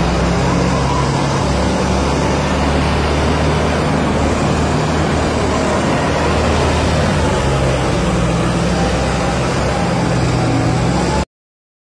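Diesel engines of a long-boom excavator and a crawler loader working an excavation pit, running steadily under load. The sound cuts off abruptly about eleven seconds in.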